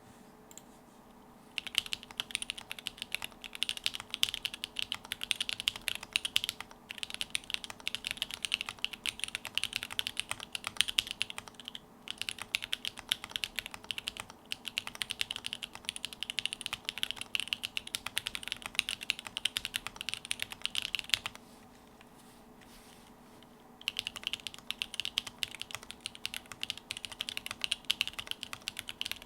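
Typing on a Quefrency 60 mechanical keyboard with lubed and filmed Creamsicle switches, DCP keycaps and neoprene case foam: a fast, continuous stream of keystrokes that starts a couple of seconds in, stops for about two seconds two-thirds of the way through, then resumes. A faint steady hum lies underneath.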